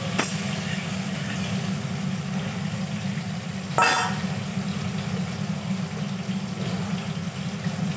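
Eggplant pieces frying in oil in an aluminium kadai, over a steady low rumble. A metal spatula clicks against the pan just after the start, and one loud ringing metal knock comes about four seconds in.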